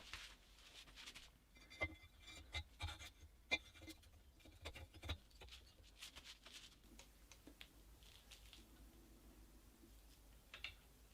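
Faint, scattered light clicks and scraping, as of small metal engine parts being handled on a bench, mostly in the first half; little more than room tone after that.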